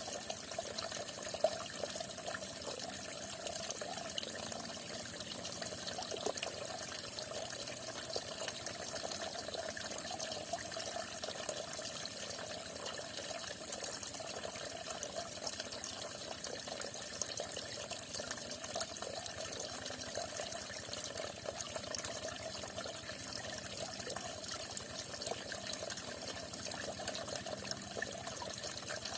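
Falling water running steadily without a break, with two brief louder ticks, one near the start and one about two-thirds of the way through.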